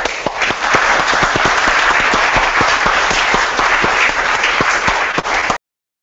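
Audience applauding: a dense patter of many hands clapping, cut off abruptly about five and a half seconds in.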